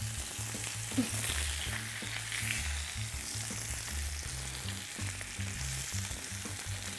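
Beef burger patty and shredded oxtail meat sizzling steadily in a cast-iron skillet.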